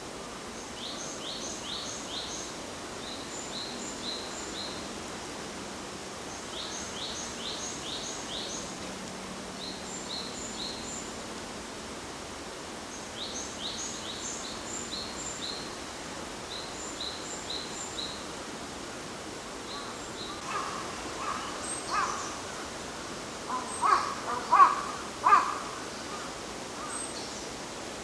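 Wild birds calling: short high-pitched chirps in quick groups of three to five, repeated every few seconds. About two-thirds of the way in, several louder, harsh calls follow, with the loudest cluster near the end.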